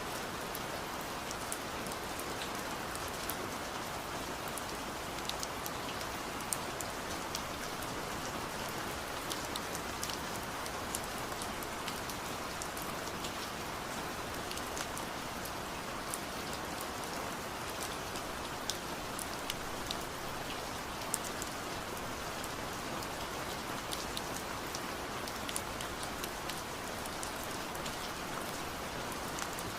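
Steady rain, an even wash of noise with scattered sharp ticks of individual drops.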